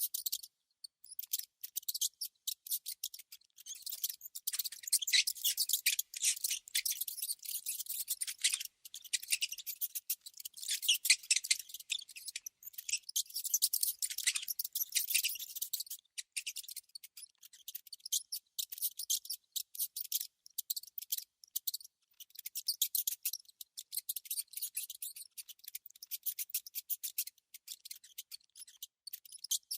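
Small rodents making rapid, high-pitched squeaks and clicks, coming in dense runs with brief gaps and busiest in the first half.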